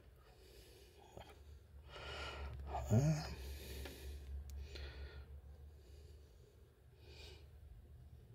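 A man breathing softly, several quiet exhalations through the nose, with a short hum rising in pitch about three seconds in.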